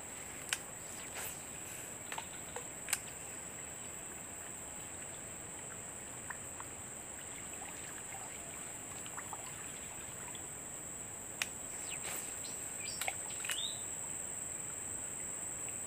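Insects in the surrounding vegetation droning steadily at a high, even pitch, with scattered faint clicks and a short rising bird chirp near the end.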